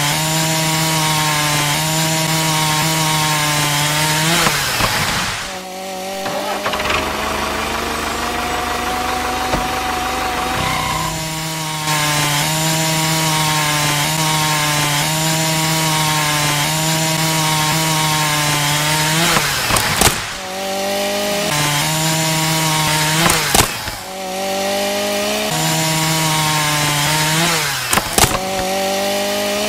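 Small electric motor spinning a thin cutting disc on a toy tractor, a steady whine that sags in pitch each time the disc bites into a twig trunk, several times, with short clicks at some of the cuts. For about six seconds early on, a lower whine that slowly rises in pitch takes over.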